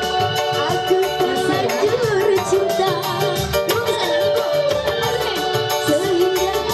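Live band music played loud through a PA: keyboard and electric guitar over hand drums, with a woman singing into a microphone.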